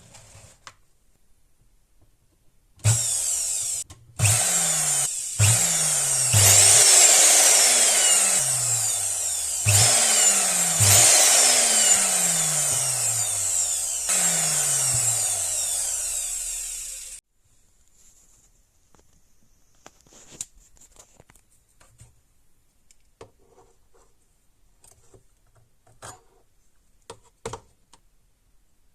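A small electric motor in a power tool or appliance, run in repeated bursts of about a dozen seconds in all. It is retriggered several times, its pitch falling as it slows after each start, and it cuts off suddenly. Faint clicks of handling follow.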